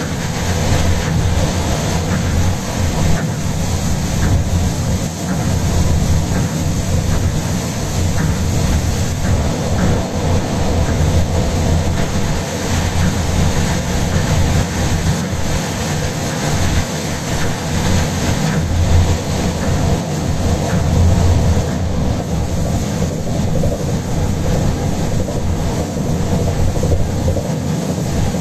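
Steady running noise heard from inside a Tokyo Monorail 10000-series train travelling along its elevated concrete beam. It is a continuous low rumble with a hiss on top and no breaks.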